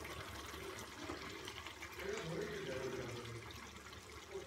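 Fish curry simmering in a kadai over a gas flame, making a steady bubbling hiss.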